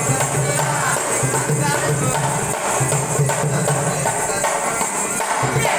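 Harmonium and dholak playing together: the harmonium holds and changes chords over a hand-played dholak rhythm.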